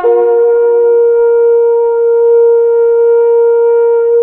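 Closing notes of a short melody on a wind instrument: the tune steps up to a final note and holds it steadily with a full, horn-like tone.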